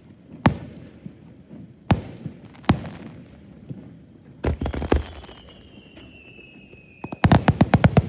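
Aerial fireworks bursting: single bangs a second or so apart, each with an echoing tail, a quick group about four and a half seconds in, then a rapid volley of crackling bangs from about seven seconds in.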